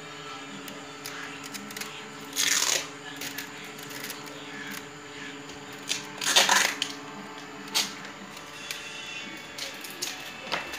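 Enamelled copper wire being hand-wound onto a toroidal transformer core: a few brief rustling swishes as the wire is drawn through the core and pulled tight, over a steady low hum.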